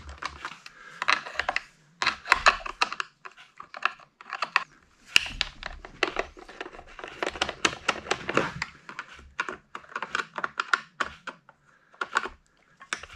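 Small clicks and plastic rattling as a T20 Torx screwdriver undoes the screws of a Poulan chainsaw's plastic top cover and the cover is worked loose by hand. The sounds come in irregular clusters with short pauses.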